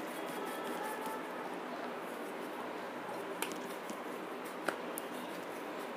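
Hands patting and spreading dry flour over a stone rolling board: a quiet steady hiss with two faint taps, about three and a half and nearly five seconds in.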